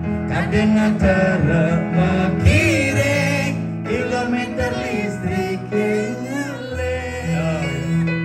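A man singing into a microphone through the stage PA, over live electronic keyboard accompaniment with sustained chords.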